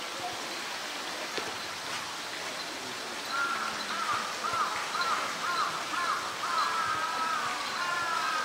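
Steady rush of flowing water. From about three seconds in, a run of short, evenly repeated high calls, each rising and falling, drifts into longer wavering calls near the end.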